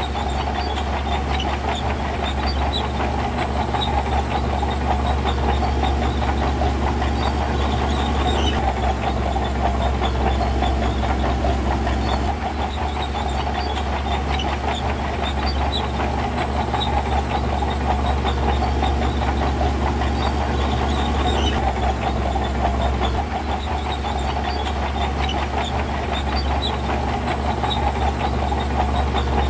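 Diesel engine of heavy earthmoving equipment running steadily under load, with a constant low rumble.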